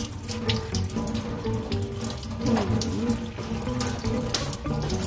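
Water running from a kitchen tap into a stainless steel sink, splashing over a termite mushroom as it is rinsed by hand.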